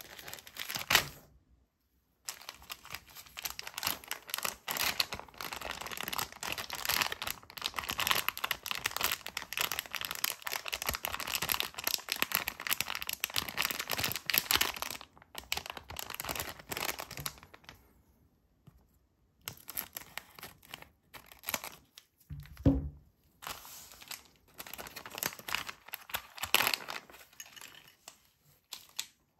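Plastic LEGO minifigure blind bag crinkling and tearing as gloved hands squeeze it and rip it open, in long stretches with short pauses. About two thirds of the way through there is one dull thump.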